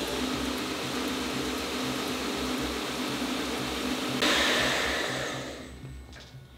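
Belt grinder running steadily, with a sudden louder, brighter grinding hiss about four seconds in as the steel is pressed to the belt, then the sound dies away near the end.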